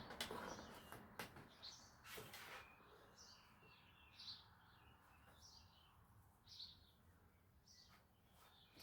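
Faint bird chirps repeating every second or so, with a few quiet clicks of handling in the first couple of seconds.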